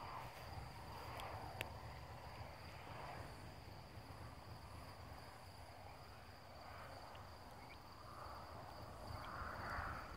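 Crickets chirping in a steady, high, even trill on a summer night, over a soft noise that swells and fades every second or two and grows a little louder near the end.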